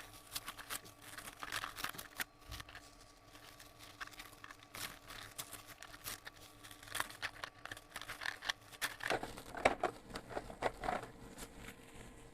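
Plastic cling wrap being pulled and peeled off by hand: irregular crinkling and crackling, a little louder about nine seconds in.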